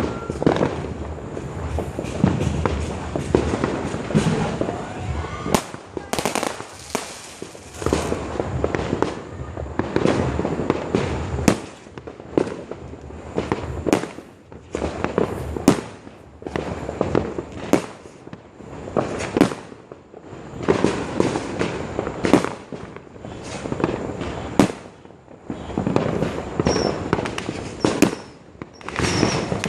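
Fireworks exploding in a long irregular series of sharp bangs, one every second or two, with crackling and rumbling between the reports.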